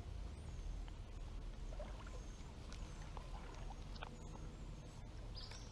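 Outdoor ambience with a steady low rumble, a few scattered small clicks and several faint, short high chirps.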